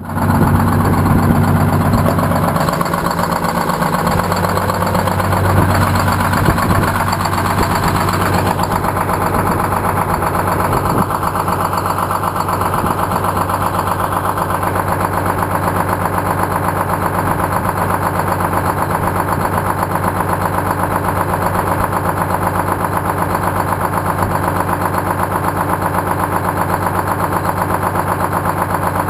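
1959 GMC truck's Detroit Diesel two-stroke diesel engine idling, heard close from beneath the engine. It is louder and uneven for the first several seconds, then settles into a steady idle.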